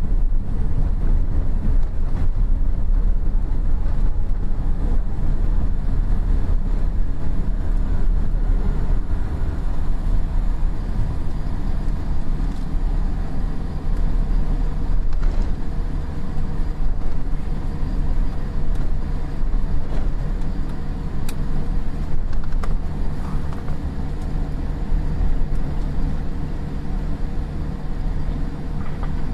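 Cabin noise inside a Boeing 787-8 airliner: a steady low rumble of engines and airframe that gradually eases off.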